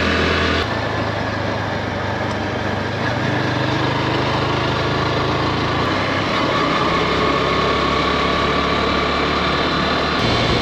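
A 110cc motorcycle engine running steadily, its note shifting abruptly a few times.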